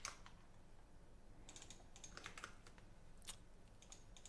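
Near silence with a scattered handful of faint clicks from a computer keyboard and mouse.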